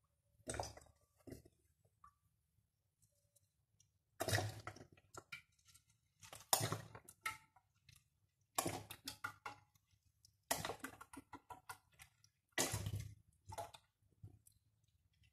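Coconut oil pouring from a plastic can into a wide metal pan, the can glugging in bursts: two short ones near the start, then five louder ones about every two seconds.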